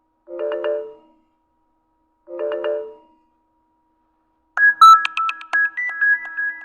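Nokia X6-00 mobile phone ringtones playing. A short chime phrase sounds twice, about two seconds apart, then a brighter, faster run of bell-like notes begins about four and a half seconds in.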